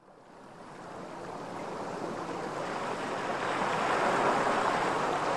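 Opening of an ambient background music track: a wash like ocean surf fading in from silence and swelling steadily.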